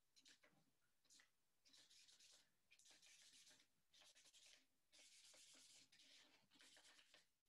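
A marker drawing lines on thick paper: faint scratchy strokes, about six of them, each half a second to a second long.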